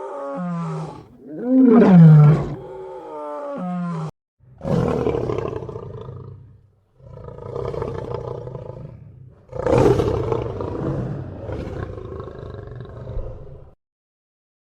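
A big cat roaring: a series of loud roars with short gaps between them, the first ones rising and falling in pitch, the later ones longer and rougher.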